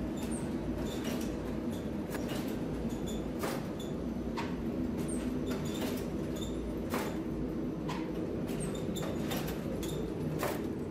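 Flatbread bakery machinery running: a steady low hum with sharp clicks about once or twice a second, many with a short high squeak.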